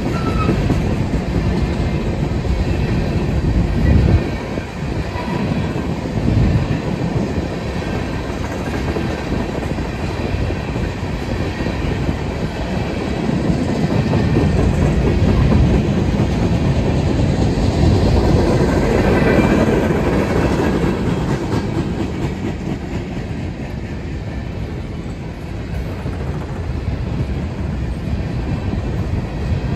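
Coal train's freight cars rolling past, steel wheels clattering steadily over the rails, with louder knocks about four and six seconds in.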